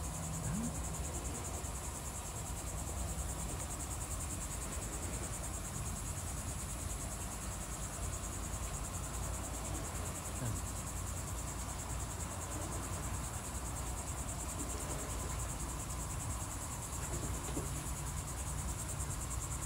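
Steady high-pitched insect chorus, a fine rapidly pulsing buzz, with a low steady rumble underneath.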